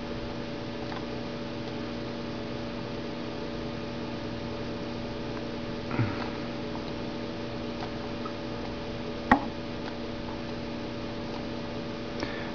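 Steady electrical hum made of several constant tones over a light hiss, with a brief soft noise about six seconds in and one sharp click about nine seconds in.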